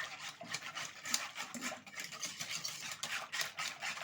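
A utensil stirring a cold milk, cocoa and starch mixture in a pot, making quick repeated scraping strokes against the pot.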